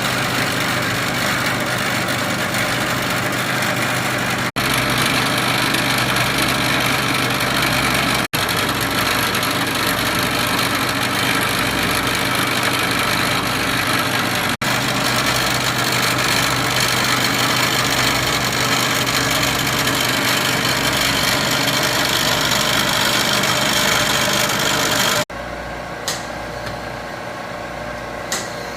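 A metalworking machine tool runs steadily and loudly while machining aluminum motor-mount parts, with abrupt breaks where the footage is cut. In the last few seconds the running is quieter, with two sharp clicks.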